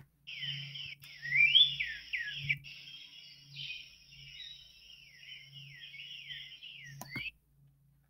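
Recorded song of a northern cardinal played back: a run of clear whistled notes, mostly slurring downward, in quick repeated phrases. It cuts off suddenly about seven seconds in.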